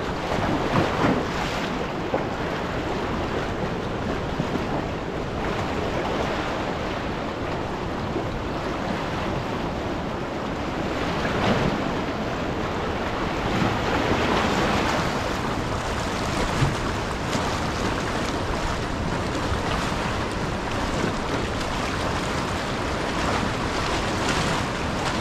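River water rushing steadily, an even continuous noise.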